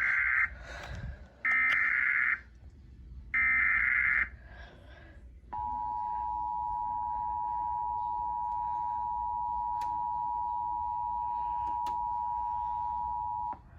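Emergency Alert System SAME header: three short bursts of screechy digital data tones. After them comes the steady two-tone attention signal, held for about eight seconds before it cuts off sharply, announcing an emergency alert.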